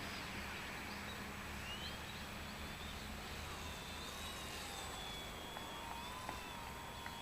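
Radio-controlled styrene model airplane's motor whining in flight, faint, its pitch wavering up and down as the plane manoeuvres and the throttle changes.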